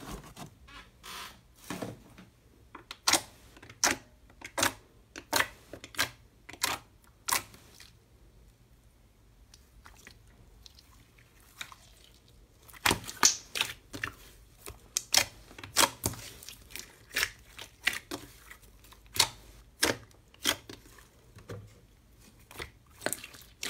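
Sticky slime being pressed and pulled by hand, making sharp wet clicks and pops in irregular runs, with a quieter stretch of a few seconds near the middle.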